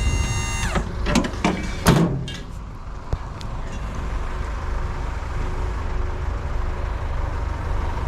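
A few sharp metal clanks in the first two seconds as the last of a load of scrap metal comes off the truck, then the truck's engine idling steadily.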